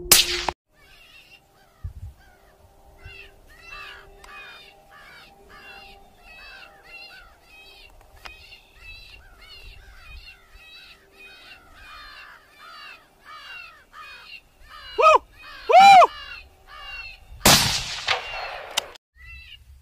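A rifle shot cracks right at the start. After it comes a long run of harsh cawing calls, about two a second. Two short yelps rise and fall, and then a second rifle shot rings on for more than a second.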